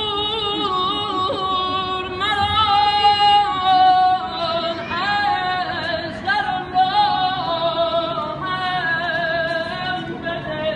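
A man's solo voice singing unaccompanied, a Persian devotional chant in long, high held notes with quavering trills and ornaments (tahrir).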